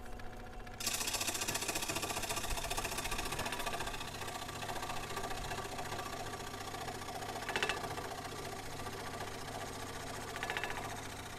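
Scroll saw running, its reciprocating blade cutting through a wooden board with a fast, steady chatter. The cutting noise grows louder about a second in, then eases slightly and carries on steadily.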